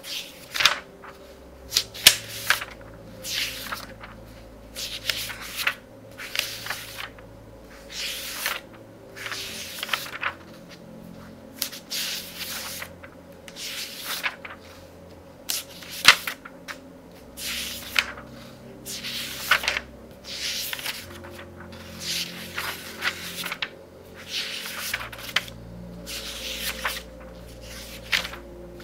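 Thin pages of a very thick book being turned quickly one after another, each turn a short papery swish, about one or two a second, some with a sharper flick. Soft music with held low notes sits faintly underneath.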